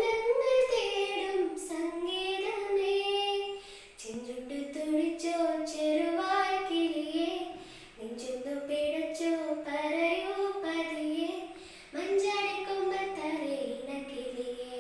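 A girl singing solo and unaccompanied, in long held phrases with a wavering pitch, taking a short breath about every four seconds.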